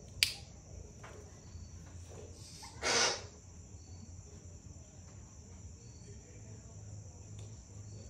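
Steady high-pitched drone with a faint low hum underneath. A sharp click comes just after the start, and a short harsh burst of noise about three seconds in is the loudest sound.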